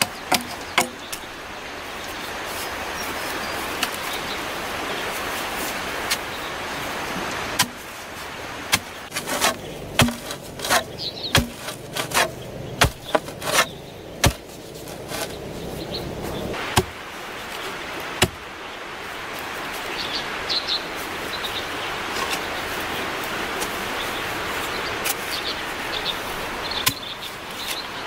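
Sharp knocks and chops on green bamboo poles as a shelter frame is built, bunched into a quick run about a third of the way in and scattered elsewhere, over a steady background hiss.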